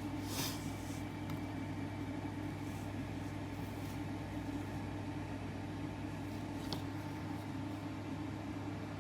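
A steady low hum and hiss of running room machinery, with a couple of faint clicks from handling.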